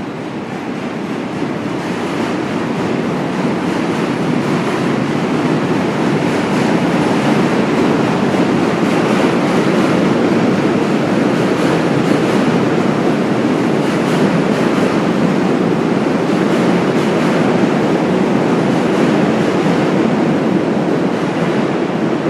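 A train running past, a loud steady rumble that builds over the first few seconds and eases a little near the end.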